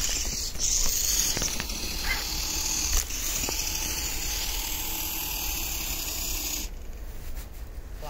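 Small electric radio-controlled vehicle driving through snow: a steady hissing and grinding from its motor, drivetrain and tracks that stops about seven seconds in.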